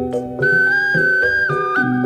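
Background music: a held, flute-like melody comes in about half a second in, over a repeating bass and accompaniment pattern.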